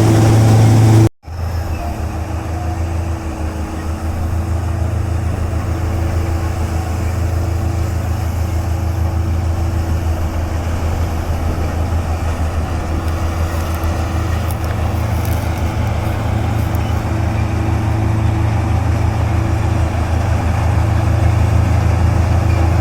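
Combine harvester engine running steadily with a deep, even hum. It cuts out for a moment about a second in, then carries on.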